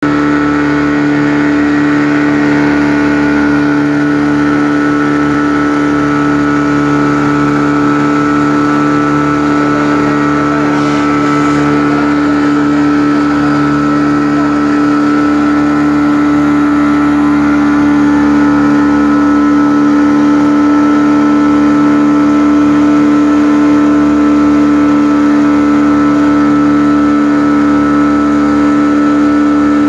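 Small outboard motor running steadily at cruising speed, driving a small boat across the water; its pitch holds constant throughout.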